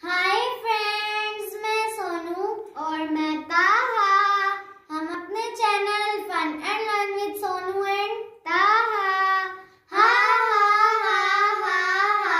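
Children singing a short song in phrases of long, wavering held notes with brief breaks between them.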